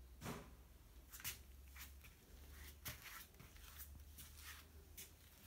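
Near silence with faint, irregular rustles and soft taps, one or two a second, over a low room hum: handling and movement noise from the person filming.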